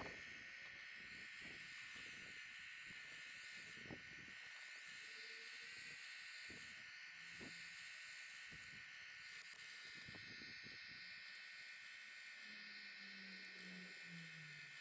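Near silence: a faint steady hiss with a few soft knocks and a faint low hum near the end.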